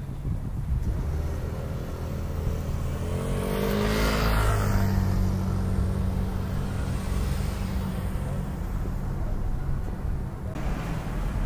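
Road traffic: a steady low engine hum throughout, with one vehicle passing close about four seconds in, its sound swelling and rising in pitch, then fading.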